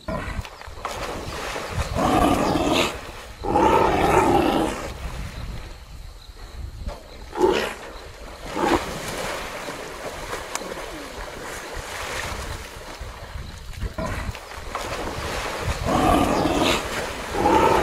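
Lions growling and snarling as they wrestle a waterbuck in a river, over heavy splashing and churning water. Loud growls come in bursts twice in the first few seconds and again near the end, with sharp splashes in between.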